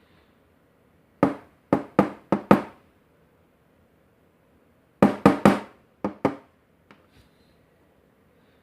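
Sharp knocks with a short ring, about five in quick succession about a second in and about five more around five seconds in: the brass lock housing being rapped on a hard surface to shake the springs out of its pin chambers.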